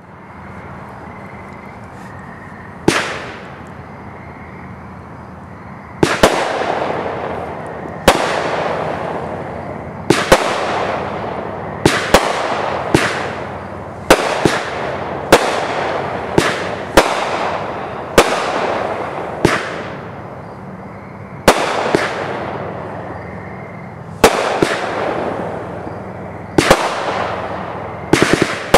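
Boomer 'After Burner' consumer firework cake firing its shots: sharp bangs one to two seconds apart, about twenty in all, each followed by a sound that fades over a second or so. There is a single bang about three seconds in, and the steady run of shots starts about six seconds in, after a low steady hiss.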